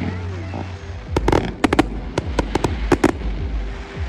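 Fireworks bursting in the sky: a quick run of about ten sharp bangs and cracks, starting about a second in and thinning out after three seconds.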